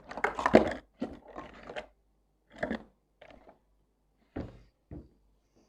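Kitchen containers and utensils being handled: short bursts of knocking and scraping, densest in the first two seconds, then single knocks about a second apart.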